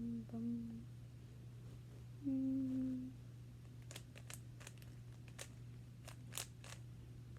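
A person humming two short held notes, then a run of about eight sharp clicks, like a Rubik's cube being turned, over a steady low hum.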